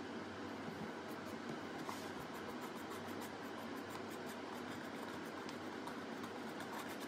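Steady background hiss with faint, light scratches and ticks of a fine paintbrush and fingers working on a mask.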